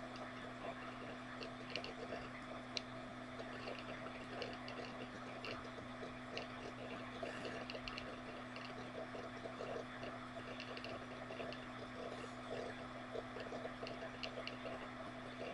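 Room tone: a steady low hum under an even hiss, with scattered faint short clicks.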